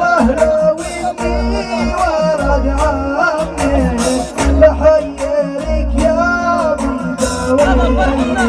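Male voice singing a Bedouin hjini song, the melody bending and ornamented, over an instrumental backing with a steady drum beat and heavy bass.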